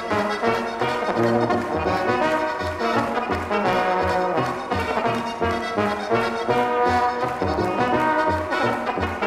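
Alpine brass band of trumpets, clarinet, accordion and tuba playing a lively tune, the tuba bass pulsing about twice a second on the beat, with the audience clapping along in time.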